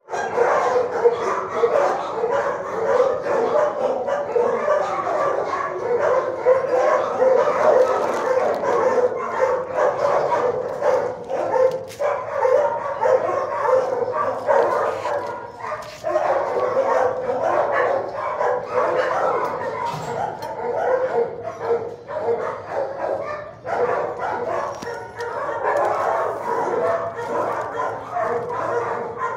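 Many dogs barking at once in shelter kennels, a continuous din of overlapping barks.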